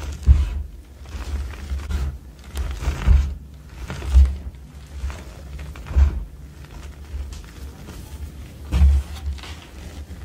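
Hands pressing into and scooping a pile of loose crushed gym chalk powder: soft crunching and rustling, with several dull thumps as the palms push down into the powder.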